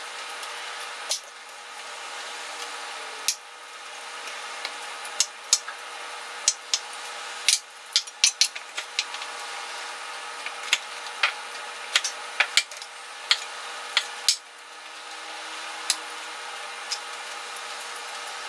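Raw beets being peeled with a vegetable peeler and cut with a knife on a wooden cutting board: irregular sharp taps and clicks, thickest through the middle, over a steady background hiss.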